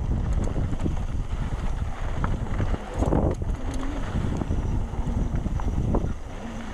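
Wind buffeting a GoPro microphone over the low rumble of a Trek Session 9.9 downhill mountain bike rolling down a rough trail, with scattered knocks from the bike over bumps.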